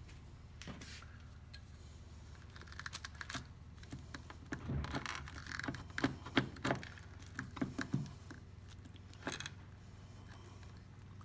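Metal spring clamps and a plastic bar clamp clicking and clinking as they are handled and snapped onto a freshly glued keel, a run of small sharp clicks and knocks through the middle, over a low steady hum.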